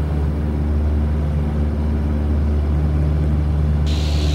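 Cessna 172R's four-cylinder Lycoming engine and propeller droning steadily. Near the end a hiss of radio static switches on as a transmission opens.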